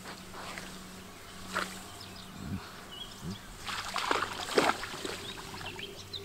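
A dog pushing through tall reeds and splashing in shallow pond water while hunting frogs: a splash about a second and a half in, then a louder run of rustling and splashing around four to five seconds in. Small birds chirp in the background.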